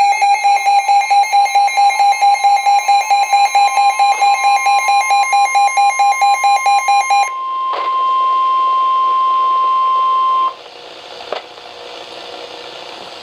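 Emergency alert tones for a tornado warning. An electronic alarm beeps rapidly for about seven seconds. Then a single steady alert tone sounds for about three seconds and cuts off suddenly, leaving faint radio hiss with a click or two.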